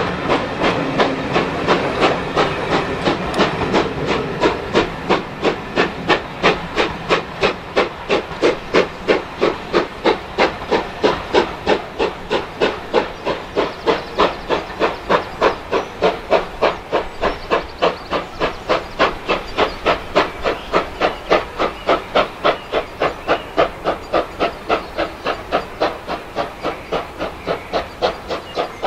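GWR two-cylinder 4-6-0 steam locomotive No. 2999 'Lady of Legend' working a train, its exhaust beating evenly about three times a second with a hiss of steam, slowly getting fainter as the train draws away.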